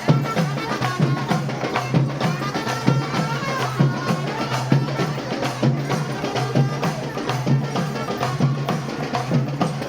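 Traditional Sri Lankan procession music: fast, steady drumming on hand drums with a wavering high melody played over it.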